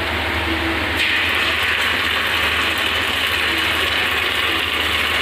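Sliced onions frying in hot oil in a pressure cooker, a steady sizzle and crackle that grows louder about a second in as ginger-garlic paste is added, over a steady low hum.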